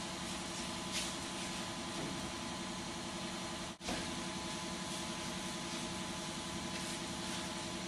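Steady machine hum with a few constant tones underneath it. It cuts out briefly a little before four seconds in, then carries on unchanged.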